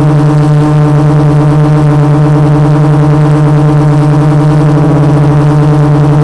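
Quadcopter's four Multistar 2212 920kv brushless motors spinning 12x4.2 carbon-fibre props, hovering with a loud, steady hum that wavers slightly.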